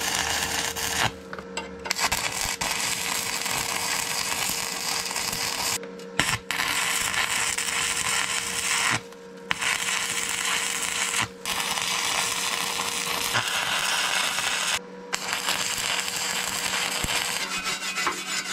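Wire-feed (MIG) welding arc crackling and sizzling as a weld is laid in several runs, each broken by a short pause. Near the end, a wire brush scrubs across the fresh weld. A faint steady hum runs underneath.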